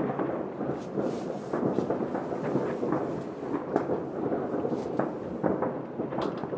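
Distant New Year's fireworks going off across a city: a continuous rolling rumble of many far-off bangs, with sharper pops and crackles standing out every second or so.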